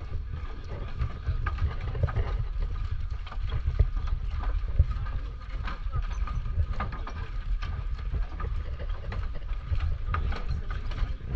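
Footsteps knocking on the wooden planks of a footbridge over a steady low rumble, with passers-by talking.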